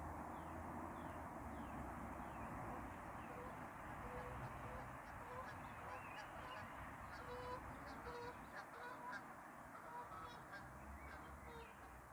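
Geese honking: many short, repeated calls that come thicker from about four seconds in, over a steady background hiss.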